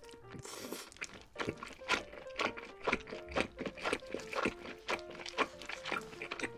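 Close-miked chewing of a mouthful of cheesy pizza: wet mouth and chewing sounds in quick succession, two or three a second, over soft background music with a simple melody.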